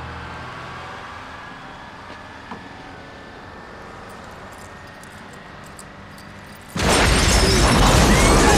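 Quiet street traffic ambience, then about seven seconds in a city bus explodes: a sudden loud blast that stays loud as the fireball burns on.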